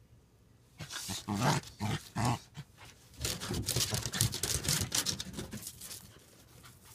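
Two dogs play-fighting, growling at each other: a few short growls about a second in, then a longer, busier stretch of growling from about three seconds in that dies away near the end.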